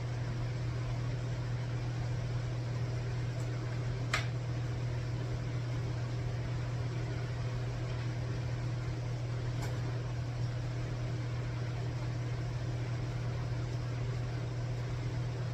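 A steady low machine hum, with a faint click about four seconds in and another near ten seconds.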